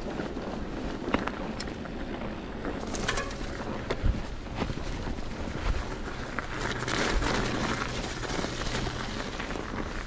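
Norco Optic mountain bike rolling over a snowy trail on Schwalbe Ice Spiker studded tyres: steady tyre and drivetrain rumble with wind on the microphone, and a few sharp knocks and rattles as the bike goes over bumps.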